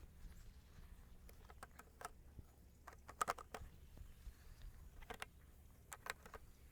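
A few faint, sharp clicks and taps in small clusters, about a second and a half in, just past three seconds, around five seconds and around six seconds.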